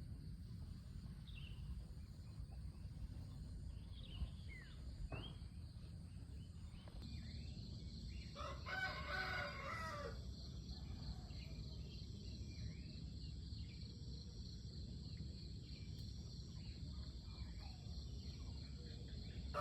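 A rooster crows once, about nine seconds in, a drawn-out call of about a second and a half. Faint short bird chirps sound around it over a steady low rumble.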